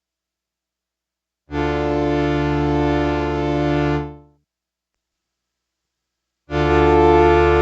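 Yamaha PSR-36 keyboard playing through a Vivlex Time Maker delay pedal set to its Pitch delay type. A sustained chord is held for about two and a half seconds and fades out. After a silent gap, another chord begins near the end.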